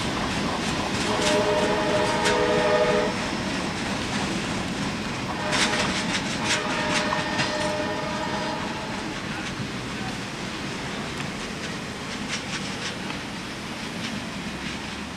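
Tail end of a freight train rolling past, its steel wheels clicking over rail joints as the last hopper car goes by and the sound slowly fades. A train horn sounds a steady chord twice, about a second in and again around six seconds in.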